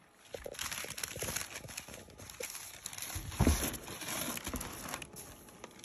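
Packing tissue paper rustling and crinkling as a sneaker is handled and lifted from its wrapping, with one dull thump about three and a half seconds in.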